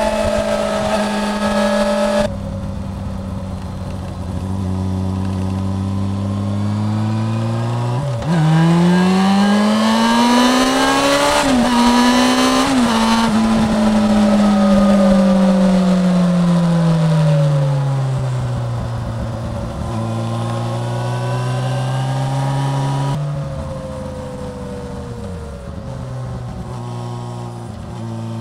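Yamaha FZ6 S2's 600 cc inline-four engine under way, heard from the rider's seat with wind rushing past. It pulls up in pitch through the gears, with quick gear changes about a third of the way in and again soon after. Then it eases off, its pitch falling slowly for several seconds, and runs on at a lower, steadier pitch.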